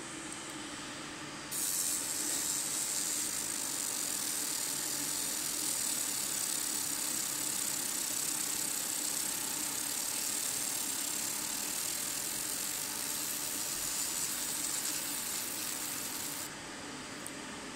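100 W fiber laser with a galvanometer scanning head marking an aluminium plate: a steady high-pitched hiss that starts about a second and a half in and cuts off suddenly near the end, over a steady low machine hum.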